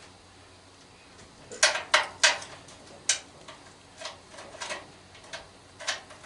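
Metal hand tools clinking and clacking as they are picked up and handled while a size is chosen for a nut: four loud clinks close together starting about a second and a half in, then lighter ticks.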